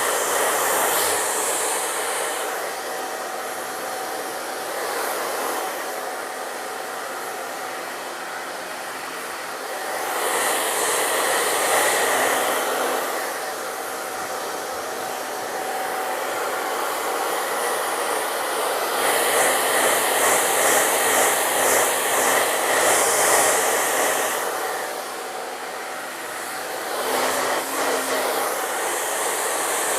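Hair dryer blowing steadily while drying a freshly bathed hen's feathers. It grows louder for a few seconds about a third of the way in and again past the middle.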